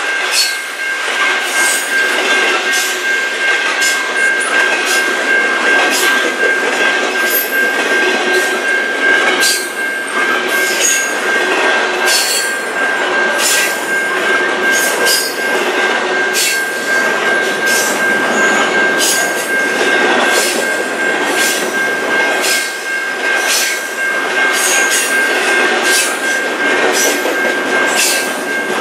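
Double-stack intermodal freight cars rolling past: steel wheels clicking over rail joints about once a second, over a steady high-pitched wheel squeal and the rumble of the train.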